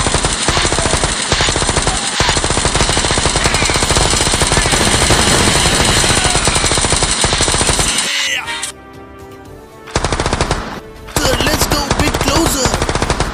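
Rapid automatic gunfire sound effects, a continuous rattle of shots. About eight seconds in the firing breaks off and a steady music tone shows for a couple of seconds. Then the gunfire resumes in two more bursts.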